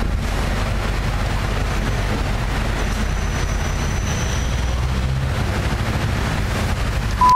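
Steady low background rumble, with a short high beep near the end.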